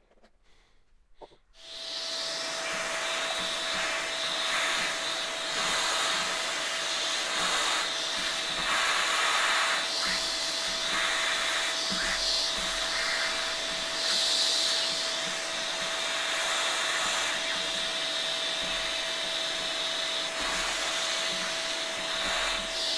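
Vacuum cleaner starting about a second and a half in and running steadily with a constant whine. Its metal wand nozzle sucks filings and dried battery corrosion out of a toy's battery compartment, and the rush of air swells and dips as the nozzle moves around.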